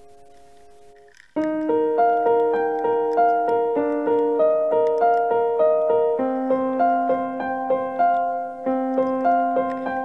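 Background piano music: a held chord fading out, then a little over a second in a new piece starts abruptly with a steady run of quick repeated notes.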